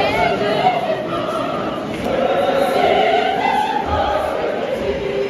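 Large church choir singing a choral piece, many voices holding long notes that slowly rise and fall.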